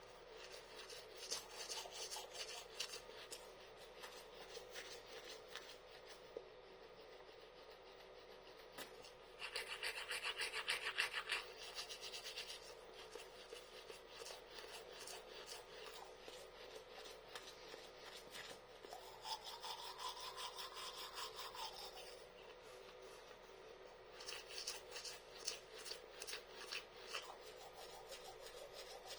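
Toothbrush bristles scrubbing against teeth in quick back-and-forth strokes. The brushing comes in spells that grow louder and softer, loudest about a third of the way in.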